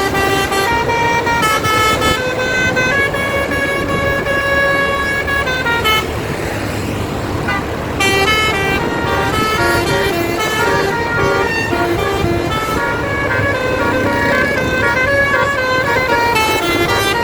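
Basuri musical bus horns on Sindurama buses playing a tune in held, stepped notes. There is a break of about two seconds near the middle, filled only with a rushing background noise, before the tune resumes.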